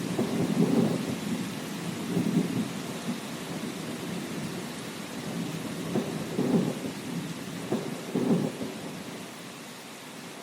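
Thunderstorm: steady rain hissing, with thunder rumbling in low rolling swells that die away near the end.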